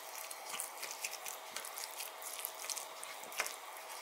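Thick semolina and buttermilk batter with chopped vegetables being stirred with a spatula in a glass bowl: soft wet squelching with many small irregular clicks.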